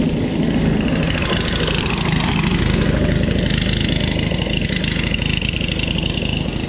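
Powerslide Next Edge SUV off-road inline skates, two 150 mm tyres per foot, rolling over a rough trail surface: a loud, steady, gritty rolling rumble.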